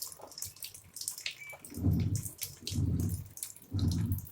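Aqua AQW-88DD top-loading washing machine starting its cycle. Water splashes and drips, and from about two seconds in the motor turns the pulsator in short pulses, a low hum about once a second.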